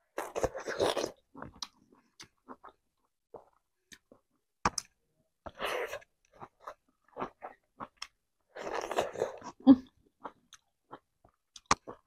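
A person chewing and biting food eaten by hand, crunching on raw leafy greens, in three short bouts near the start, about halfway and about three-quarters through. Sharp wet mouth clicks come between the bouts.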